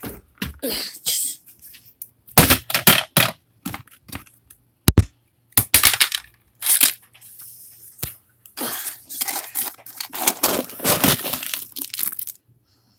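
Dry cat kibble being scooped by hand in a plastic tub: irregular bursts of rattling and rustling as the pellets shift and pour against the plastic.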